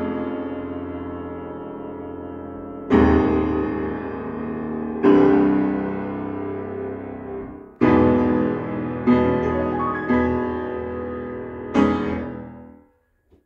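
Grand piano played solo: a slow run of loud, full chords, each struck and left to ring and die away. These are the closing chords of the piece: the last one, about twelve seconds in, fades out just before the end.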